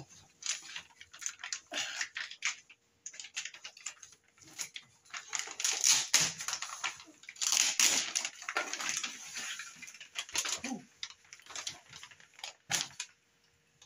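Clear plastic packaging wrap rustling and crinkling in irregular bursts as it is handled and pulled off a new all-in-one computer, with one sharp tap near the end.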